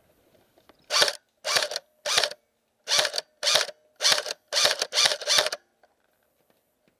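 Airsoft electric rifle (AEG) firing nine semi-automatic shots, each a short mechanical whir-and-crack of the motor and gearbox. Three shots about half a second apart, then after a short pause six more slightly quicker.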